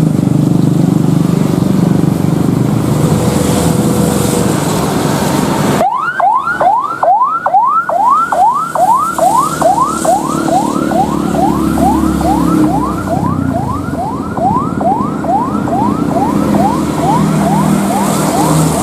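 A loud, steady rushing noise cuts off abruptly about six seconds in. A siren then sounds as quick repeated rising sweeps, about two a second and slowing gradually, over a steady low hum.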